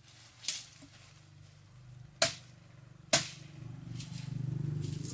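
Chainsaw engine running low, swelling slightly near the end, with three sharp cracks in the first three seconds.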